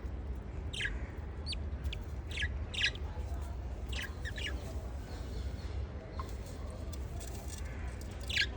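Lovebirds giving short, high, scattered chirps, the loudest near the end, over a steady low hum.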